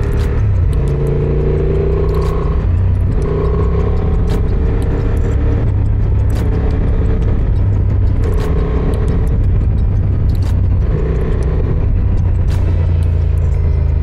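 Honda Transalp 750's parallel-twin engine running as the motorcycle is ridden on a dirt track, its note rising and falling as the throttle opens and closes. Scattered clicks and knocks come over it.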